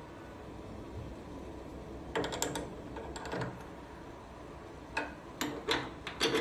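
Light clicks and clacks of zipper samples and a force tester being handled during a pin box strength test: a short cluster about two seconds in, one more near the middle, then several sharp clicks in the last second and a half.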